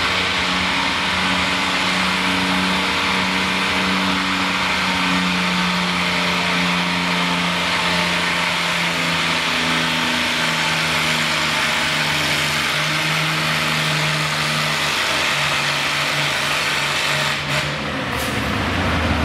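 An antique Custom-brand pulling tractor's engine running hard under load as it drags a weight-transfer sled. Its pitch holds steady, then sags a little about three-quarters of the way through as the engine lugs down. Two brief knocks come near the end.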